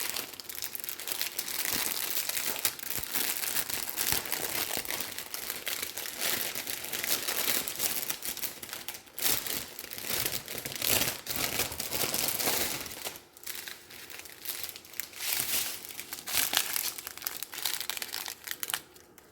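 Plastic packaging crinkling and rustling as the bagged diamond painting drills are unwrapped and handled, busy for the first dozen seconds or so and then in shorter, sparser bursts.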